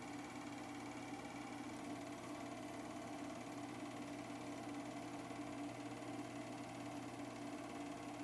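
An 8mm film projector running steadily. Its motor, fan and film transport make a constant mechanical hum.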